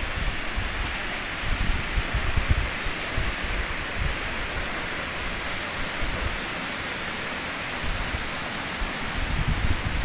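Waterfall fed by spring snowmelt runoff pouring down a rock face, a steady rushing hiss. Irregular low buffeting on the phone's microphone sits under it and grows near the end.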